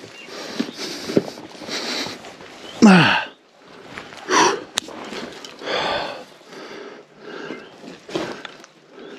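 A man breathing hard and grunting with effort while clambering down a steep, awkward descent, with a loud strained grunt that falls in pitch about three seconds in. Heavy breaths come roughly every second, with a few sharp knocks and scrapes.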